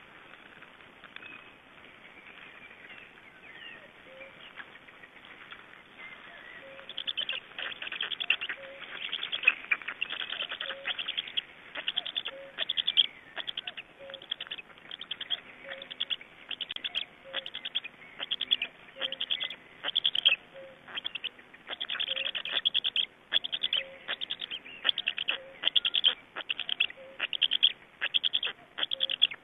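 Black stork chicks giving rhythmic raspy begging calls, one burst of rapid chatter about every second, starting about seven seconds in and continuing. Before that, only faint forest background with distant birdsong.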